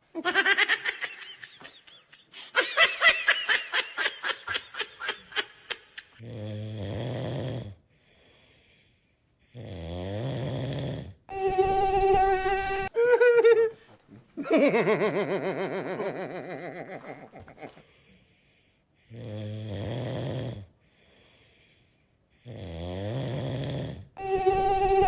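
A man snoring loudly and comically in repeated cycles: low rumbling snores, fast fluttering exhales and held whistling tones, with short pauses between breaths.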